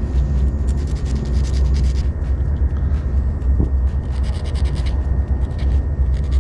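Fishing hook point being sharpened with a small hook file: quick, repeated scraping strokes of file on metal, over a steady low rumble.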